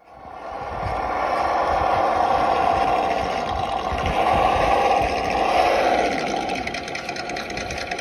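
Radio-controlled 1/10-scale Traxxas TRX-4 crawler with a Land Rover Defender body driving through a shallow rocky stream: a steady whirring, hissing noise that fades in at the start and turns into a rapid, even rattling pulse in the last two seconds.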